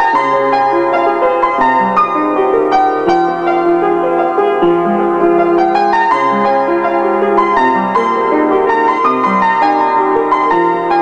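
Upright piano played solo: a flowing melody over held chords and a moving bass line.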